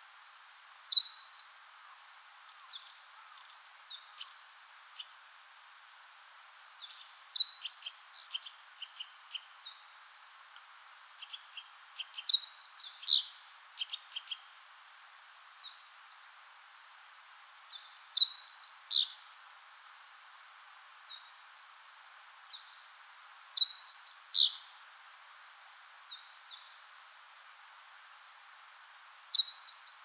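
Wild songbird singing a short, high phrase of quick descending notes about every five to six seconds, with softer chirps and calls between, over a faint steady background hiss.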